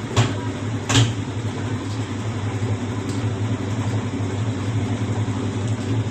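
Whirlpool White Magic Royal Plus 7 kg top-load washing machine running with a steady low hum. Two short knocks come in the first second, the second louder.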